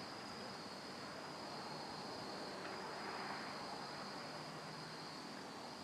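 Crickets trilling steadily as one continuous high note, over a faint even hiss.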